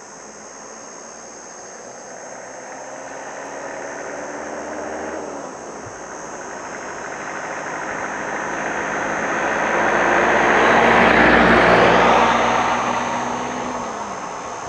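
Road vehicles driving past. An engine grows louder and drops in pitch as it passes about five and a half seconds in. Then a louder rush of engine and tyre noise swells to a peak around eleven seconds as a vehicle passes close, and fades with another pitch drop near the end.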